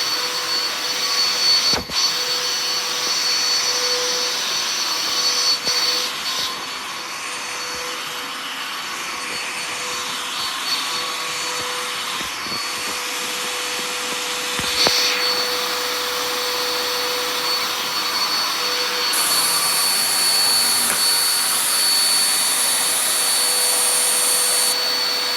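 Household vacuum cleaner running steadily, a rushing hiss with a constant high whine, with a brief knock about two seconds in.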